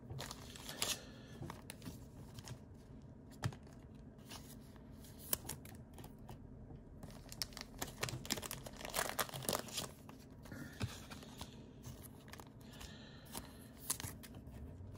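Trading cards being handled: faint rustling and light taps of card stock, with short bursts of crinkling, busiest about halfway through.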